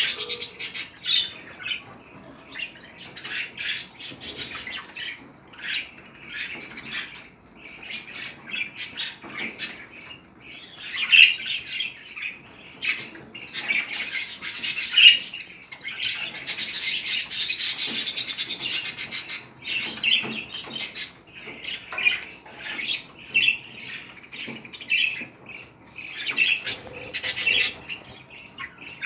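Budgerigars chattering and squawking without a break, in quick warbles and chirps. A denser, louder stretch of chatter comes in the middle, with a couple of sharp squawks standing out.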